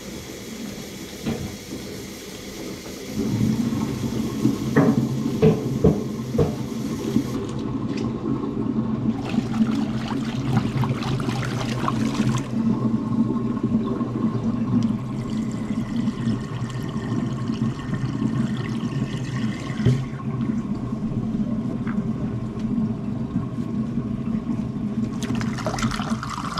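Water running hard and rushing down a kitchen sink drain, steady and gurgling, growing louder about three seconds in, with a few knocks a few seconds later.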